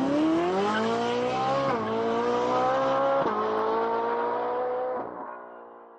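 Engine sound effect of a vehicle accelerating through its gears. The pitch climbs, dips at two gear changes about two and three seconds in, holds steady, then fades away near the end.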